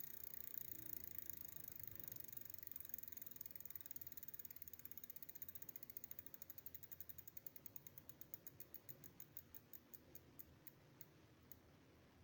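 Rear wheel of an e-bike with a geared hub motor spinning down, its freewheel ratchet clicking ever more slowly until the wheel stops near the end.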